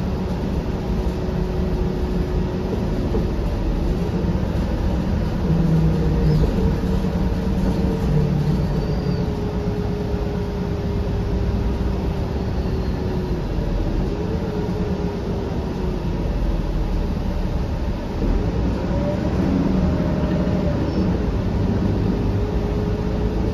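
Cummins ISL9 diesel and drivetrain of a 2013 Gillig BRT transit bus, heard from inside the cabin while the bus drives: a steady low rumble with a thin whine that rises and falls several times as the bus speeds up and slows.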